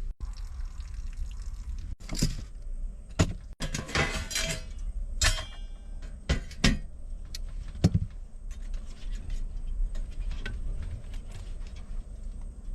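Cookware and kitchen utensils being handled: scattered knocks and clinks, busiest between about two and four and a half seconds in, with one ringing metallic clink just after five seconds, over a steady low rumble.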